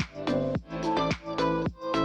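Background electronic dance music with a steady beat and stacked synth chords, about two beats a second.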